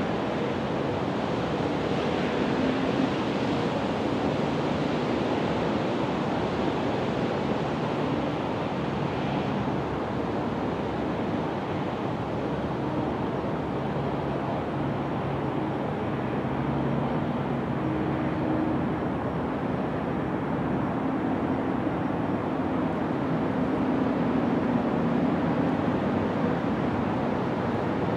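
Steady outdoor background noise: wind and distant traffic rumble, with faint low engine hums that drift slowly in pitch.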